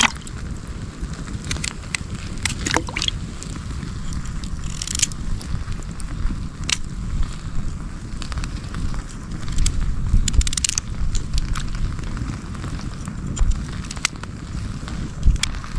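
Wood campfire crackling, with scattered sharp pops and clicks, over a low steady rumble of wind on the microphone.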